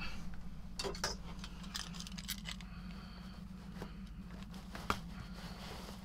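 Rustling and crinkling of a full central vacuum filter bag being handled and hung, with scattered light clicks, the sharpest about five seconds in, over a steady low hum.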